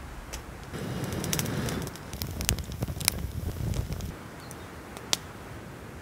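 Small wood fire in a titanium Bushbox wood stove, with rustling and a run of sharp snaps and clicks as sticks are handled at the stove, and one more sharp click about five seconds in.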